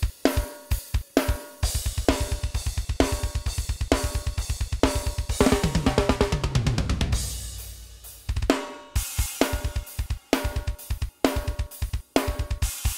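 Metal drum tracks played back from a multitrack session: kick, snare and cymbal hits, breaking into a fast double-kick run about two seconds in that lasts several seconds, the doubled kicks layered with a clicky typewriter-like sample. After a brief ring-out, the spaced single kick and snare hits return.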